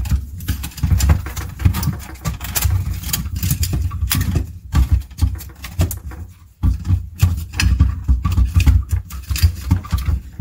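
Handling noise of a plastic inline water-filter cartridge being slid into zip ties on top of plastic filter housings: irregular knocks, clicks and rubbing, with a heavy low rumble.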